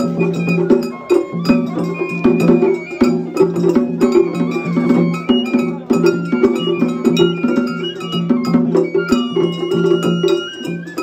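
Festival hayashi music played on a float: drums beaten in a quick, steady rhythm with a metallic clang, and a bamboo-flute melody stepping up and down above them.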